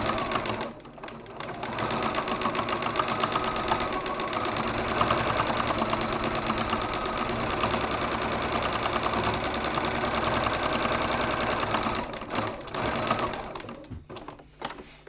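Sewing machine stitching back and forth over the same spot to reinforce a tab. It stops briefly about a second in, starts again and runs steadily, then stops near the end.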